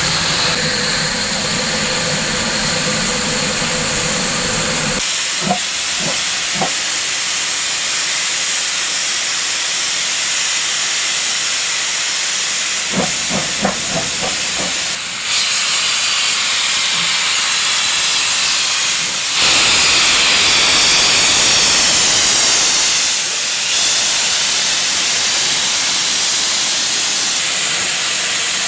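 Steam locomotives of a 15CA and 25NC doubleheader letting off a steady, loud hiss of steam. For the first five seconds there is also a low rumble, and there are a few brief sharp knocks twice. The hiss grows louder for a few seconds past the middle.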